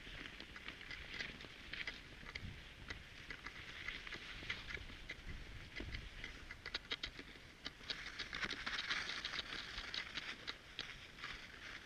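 Cross-country skis sliding over snow: a steady hiss with many irregular clicks, growing louder about eight seconds in.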